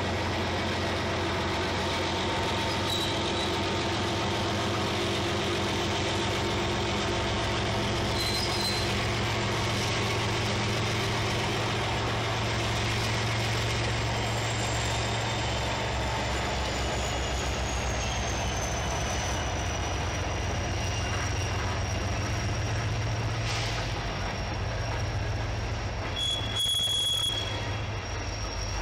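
Freight train of tank cars rolling past behind two Union Pacific diesel locomotives: a steady low engine drone and the rumble of the cars. From about halfway a thin, high wheel squeal sets in and slides slowly lower, with another short squeal near the end.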